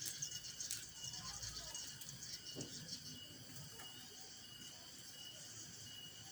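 Small birds chirping and twittering high, over a short high note that repeats steadily about twice a second.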